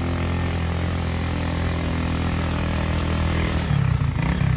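An engine running steadily, turning rougher and more uneven about three and a half seconds in.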